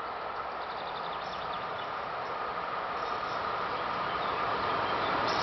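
EP07 electric locomotive and its passenger coaches approaching on the track: a steady rushing rail noise that grows louder as the train draws nearer.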